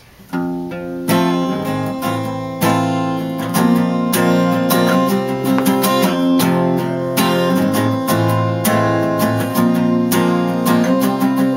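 Acoustic guitar strummed and picked in a steady rhythm, the instrumental intro of a song, starting about a third of a second in.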